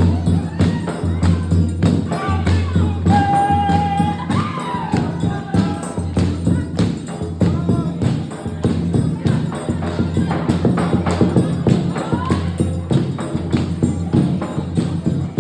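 Music with a fast, steady beat over strong bass, with a short held melodic or sung line about three seconds in.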